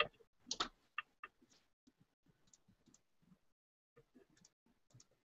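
Faint, irregular light clicks and taps of small metal drill chucks being handled.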